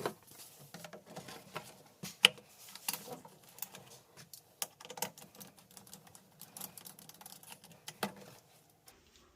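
Irregular light clicks and taps of parts and tools being handled, with a sharper knock about two seconds in.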